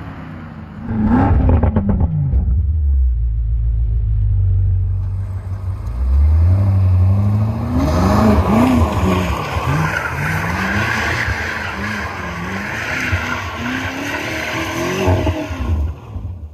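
BMW F90 M5's twin-turbo V8 on its stock exhaust: a rev that rises and falls, then a few seconds of steady low drone. From about six seconds the engine revs up and down over and over while the rear tyres spin and squeal in donuts.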